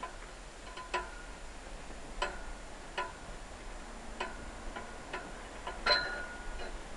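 Irregular sharp metallic clicks, several of them with a brief ringing tail and the loudest near the end: a steel pull-up bar knocking and creaking under a man's bodyweight as he swings and holds levers on it.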